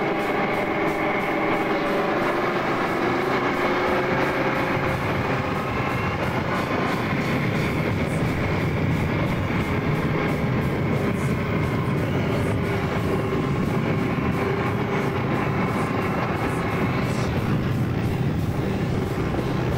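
Tracked armoured vehicle on the move, heard from its turret: steady engine and track noise.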